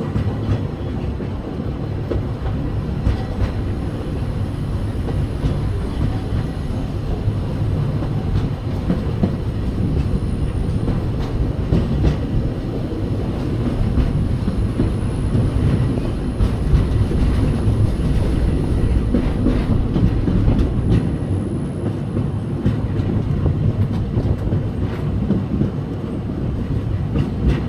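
Steam railroad train heard from aboard a passenger car: a steady rumble of the cars rolling along the track, with the clickety-clack of wheels over rail joints.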